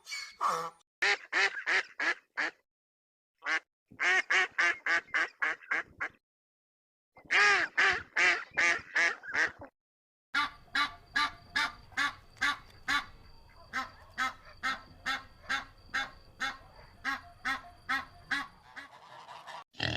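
Farm fowl calling in quick repeated series of about three to four calls a second, in several separate stretches with abrupt silent gaps between them. The longest stretch comes last.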